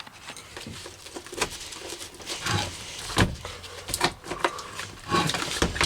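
Irregular clicks, knocks and light scraping from hands working on the small Eberspacher D1L diesel heater as he begins to open it up.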